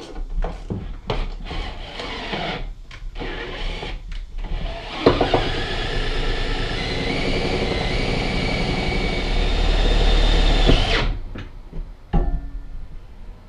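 Cordless drill driving a self-tapping screw into the trailer's metal subframe to mount a helmet holder. The motor runs steadily for about six seconds, gets louder near the end, then stops abruptly. Before it come scattered clicks and knocks as the bracket and drill are handled.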